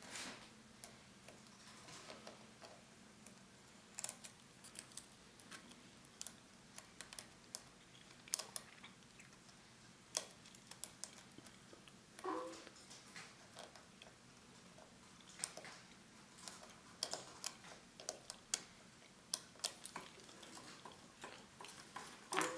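Faint, irregular metallic clicks and ticks of a lock pick and tension wrench working the pin tumbler core of an Abus 83CS/55 padlock.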